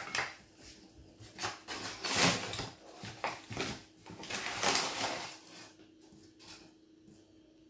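Paper flour bag rustling and crinkling as a measuring cup is dug into the plain flour and scooped out, in several rough bursts over the first five seconds or so, then quieter.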